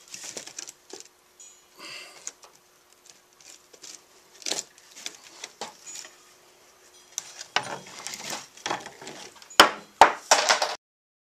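Pieces of wood being handled and set against each other: scattered light knocks, taps and scrapes, then two sharp knocks about half a second apart near the end.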